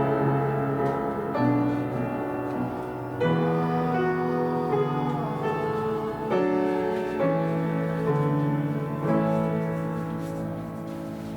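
Slow, held chords played on a keyboard instrument, changing every second or two and gradually fading toward the end.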